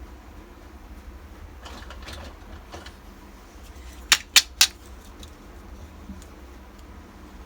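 Miniature toy kitchenware being handled: light rustling and tapping, then three sharp clicks in quick succession about four seconds in.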